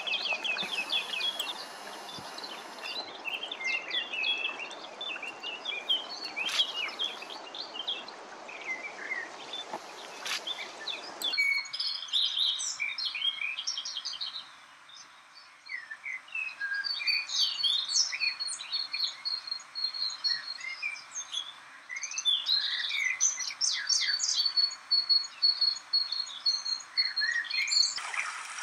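Several songbirds singing and calling at once, a busy mix of short high chirps and trills, with a fast trill of quick repeated notes near the end. A low background hiss under the birdsong stops abruptly about eleven seconds in.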